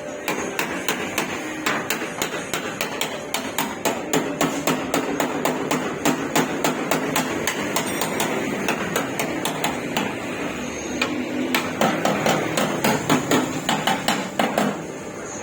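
Hammer beating a car's sheet-metal body panel in quick, even blows, about five a second, stopping near the end: panel beating during body repair.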